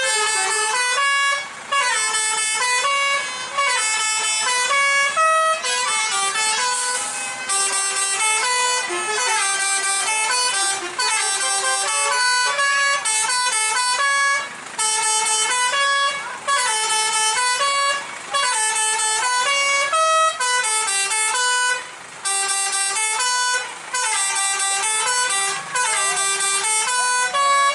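Basuri V3 telolet horn on a tour bus playing its melody: loud, stepped multi-tone horn notes in repeated phrases, with short breaks between the phrases.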